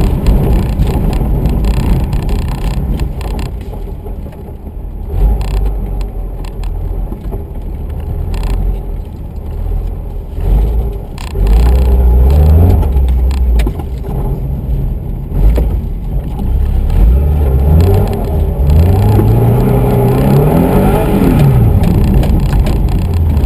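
Subaru Impreza RS's flat-four boxer engine heard from inside the cabin under hard driving. It revs up and eases off repeatedly, and in the second half its pitch climbs several times and then drops.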